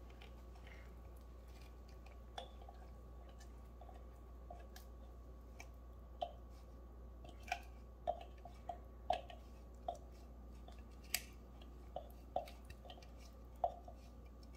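Silicone spatula scraping thick, wet marinade paste out of a plastic mini food chopper bowl, giving faint wet squishes and light taps on the plastic, more frequent in the second half.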